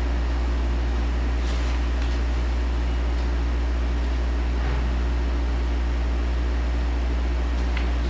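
Steady low electrical mains hum with a faint hiss, a deep buzz made of several evenly spaced steady tones. A few faint, brief rustles sound over it.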